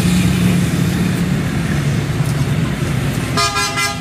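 A motor engine running steadily with a low hum, amid traffic noise. About three and a half seconds in, a brief steady high tone sounds for about half a second.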